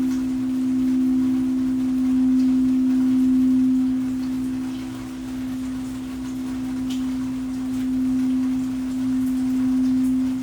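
Singing bowl sounding a low, sustained tone that swells and ebbs slowly, with a second tone just above it.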